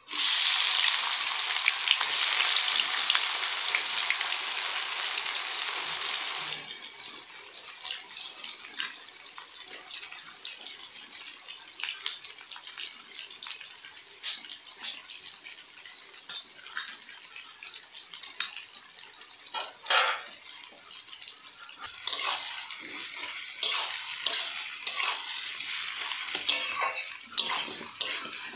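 Onions dropped into hot oil with whole spices, frying in a pan: a loud sizzle that starts abruptly and drops off about six seconds in. After that the frying goes on as a quieter crackle, with the clicks and scrapes of stirring against the pan.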